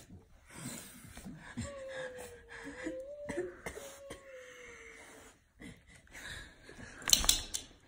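Grieving people crying softly: sniffling, wheezy breaths, with one long thin wavering whine from about a second and a half in, lasting some three seconds, and a loud sharp breath near the end.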